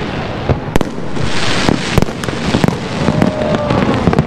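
Aerial fireworks: shells going off in many sharp bangs at uneven intervals over a continuous crackling hiss.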